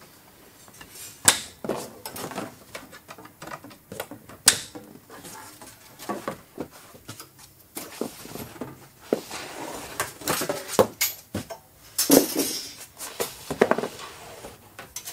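Metal snips cutting through steel strapping bands on a cardboard carton, each cut a sharp snap, the two loudest in the first five seconds. Then the loose steel bands rattle and scrape over the cardboard as they are pulled off and gathered up.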